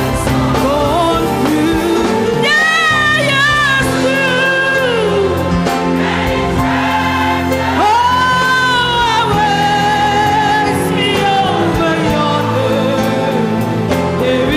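Gospel choir singing with a lead vocalist over instrumental backing with a steady beat; the lead's long held notes waver with vibrato.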